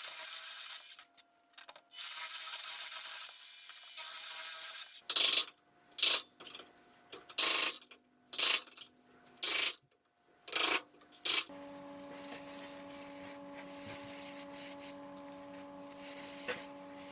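Wood being sanded by hand on a 2x4 block: a run of short, scratchy strokes about one a second, after a stretch of softer rubbing. About eleven seconds in it gives way to a steady low hum.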